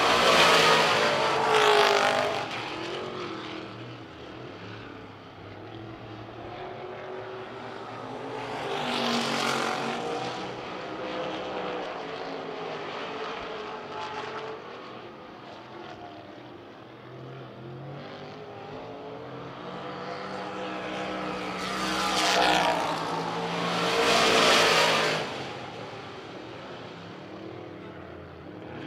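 Vintage dirt-track stock cars racing at full throttle, their engines rising and falling as they pass close by. The loudest passes come at the start, about nine seconds in, and twice in quick succession a little past twenty seconds.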